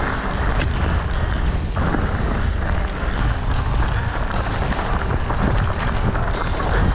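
Orbea Occam full-suspension mountain bike riding down a rocky trail: tyres crunching over stones and the bike rattling with many small knocks, under heavy wind buffeting on the microphone.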